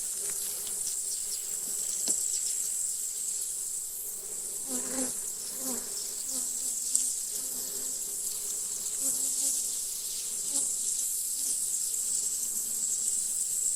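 Honeybees buzzing around an open hive, their low hum wavering and swelling now and then, over a steady high-pitched insect drone.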